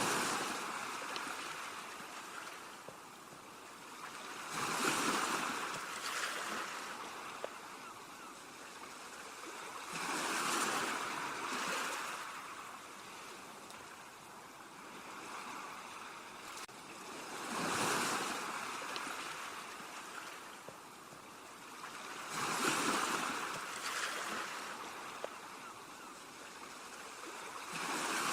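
Ocean waves breaking on shoreline rocks: a steady hiss of surf that swells into a crash every five to seven seconds, then washes back.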